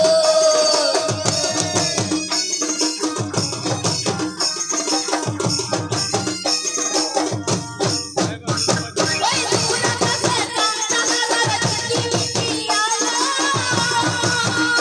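Live Purulia Jhumur folk music: barrel drums beating a steady dance rhythm with jingling percussion over it. A woman's voice sings at the start and again near the end, with mostly instrumental music in between.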